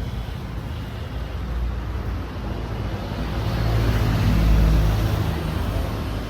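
Mercedes SLK engine running steadily, with a low hum that swells louder for a couple of seconds around four to five seconds in and then settles back.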